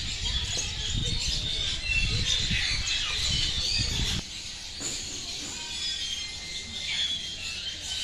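Many aviary birds chirping and calling together, a busy chorus of short high chirps. A low rumble on the microphone runs under the first half and cuts off suddenly about four seconds in.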